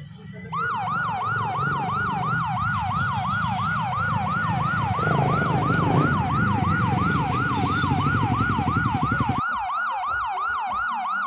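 Siren in a fast yelp, its pitch rising and falling about three times a second. Under it are the low sounds of motorcycle engines, which cut off suddenly near the end.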